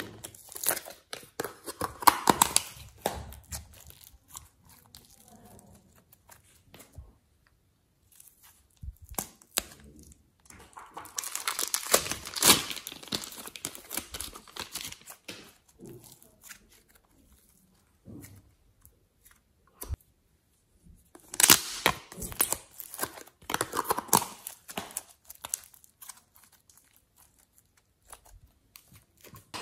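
Crinkling and crackling of clear plastic packaging and piping bags as clay is squeezed out and handled, coming in three bursts with near-silent pauses between them.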